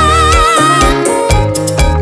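A song with a singer holding a long, wavering 'woooh' over bass and drums. The held note stops about a second in and the beat carries on.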